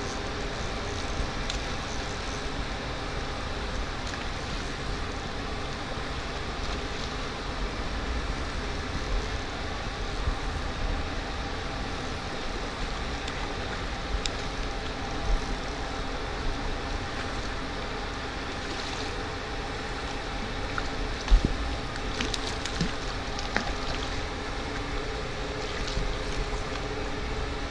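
Shallow stream water rushing steadily over a riffle, with a low wind rumble on the microphone. In the last few seconds there are a few sharp splashes as a hooked brown trout thrashes at the surface beside the landing net.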